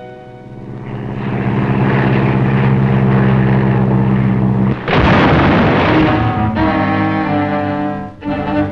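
Film sound effect of propeller-plane engines droning and growing louder, then a loud, noisy crash of the two planes colliding about five seconds in. Orchestral music with sharp chords follows near the end.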